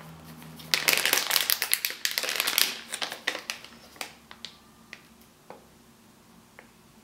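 Clear plastic packaging bag crinkling as the foam squishy sealed inside is squeezed and turned: a dense spell of crackling for about two seconds, then scattered crackles that thin out.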